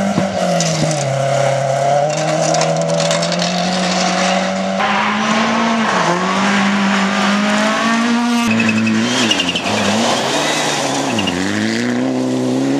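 Rally cars driven hard on a gravel stage, a Mitsubishi Lancer Evolution among them: engines revving high, their pitch climbing and dropping with gear changes and lifts, over the hiss of gravel under the tyres. The sound changes abruptly twice as one car follows another.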